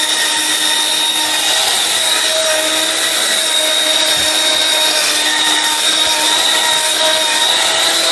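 Miyako electric mixer grinder running steadily at high speed, grinding a dry load of about half a kilo into powder: a loud, even motor whine with several steady tones over a dense grinding rush.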